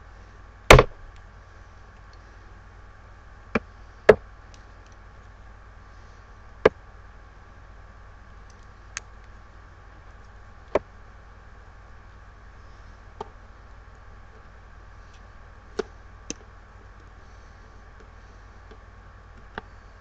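Scattered sharp clicks and knocks from ECG lead wires and their clips being handled, about ten in all, the loudest one about a second in. A steady low hum runs underneath.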